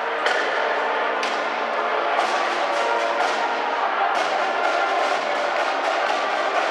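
Military-style marching band playing: trombones, trumpets, saxophones and flutes sounding sustained notes, with drum strokes from bass and snare drums beating through the music.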